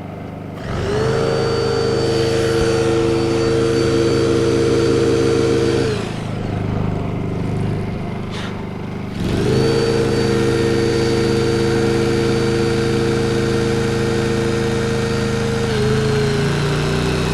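Honda portable generator's engine speeding up under load as a hydraulic rescue tool is run, together with the tool's motor. The sound rises quickly and holds steady for about five seconds, drops, then rises and holds again for about six seconds.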